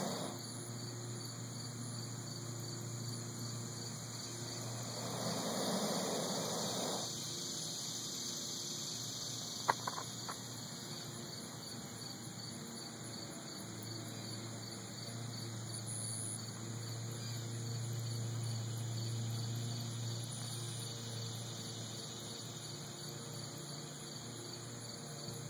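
Insects chirping steadily outdoors in a rapid, even pulse, with a low hum that fades in and out and a single click about ten seconds in.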